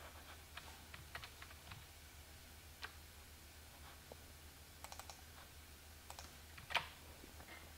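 Faint, scattered clicks of a computer mouse and keyboard over a low steady hum, the clearest click near the end.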